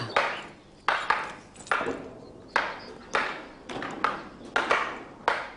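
Wooden practice swords clacking against each other in sword drill: about eight sharp strikes at uneven spacing, each ringing out briefly.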